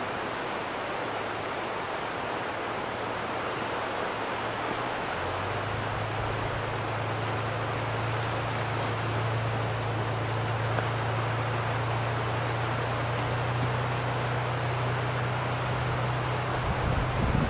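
A distant narrow-gauge locomotive's engine running with a steady low hum that comes in about five seconds in and grows a little as the locomotive approaches, over wind in the trees and scattered bird chirps.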